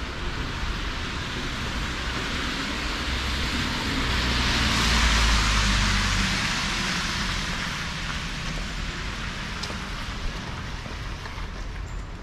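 A car driving past on a wet street, its tyres hissing on the wet asphalt over a low engine rumble; it swells to its loudest about five seconds in and slowly fades, over steady street noise.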